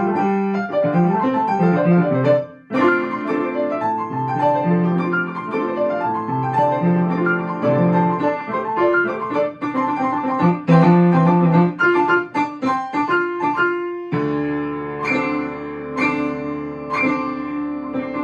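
Piano playing a lively melody of many short notes over a lower accompaniment. About fourteen seconds in, the playing breaks off briefly and resumes with low notes held under the tune.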